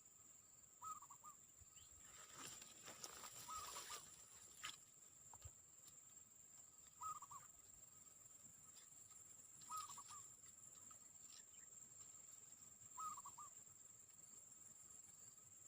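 Faint bird calls, a short warbling note repeated about every three seconds, over a steady high-pitched insect drone, with a brief hiss of noise a couple of seconds in.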